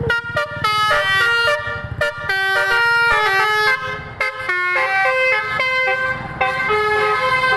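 Multi-tone basuri ("telolet") bus horn on a Sumber Alam bus, playing a melody of quick stepped notes, with short breaks about four and six seconds in.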